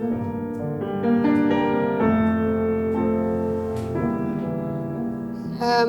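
Keyboard playing slow, sustained chords that change about once a second.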